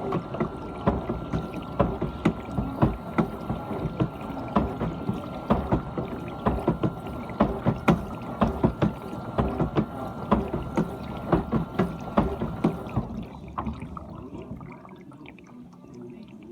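GE dishwasher washing: water sprays and splashes irregularly inside the tub over a steady motor whine. About 13 seconds in, the whine cuts off and the splashing dies down as the pump stops.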